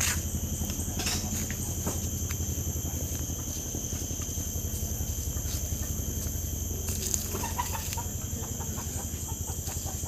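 Domestic chicken clucking a few times toward the end, over a steady high-pitched drone of insects.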